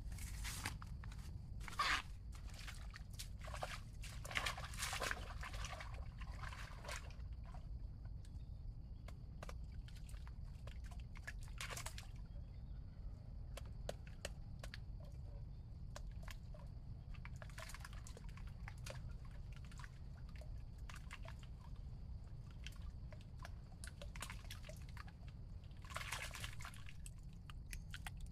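Water sloshing and dripping amid scattered clicks and short rustling bursts, over a steady low rumble and a faint, steady high-pitched hum.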